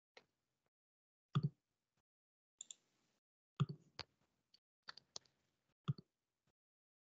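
Faint, irregular clicks and taps, about a dozen over several seconds, picked up through a video-call microphone, with dead silence between them.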